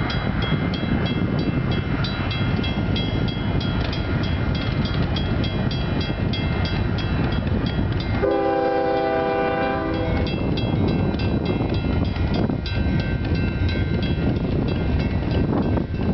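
Slow-moving Union Pacific freight train with diesel locomotives rumbling toward a grade crossing, while a crossing bell rings rapidly and evenly, about four strikes a second. About halfway through, the locomotive's air horn sounds one blast of nearly two seconds.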